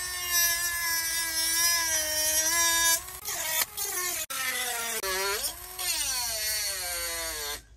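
HOTO cordless lithium rotary tool with a cutting disc, running as a high-pitched whine while cutting into PVC pipe. The pitch sags and recovers as the disc bites, with a brief break about three seconds in. The whine cuts off suddenly near the end as the tool stops and flashes a warning.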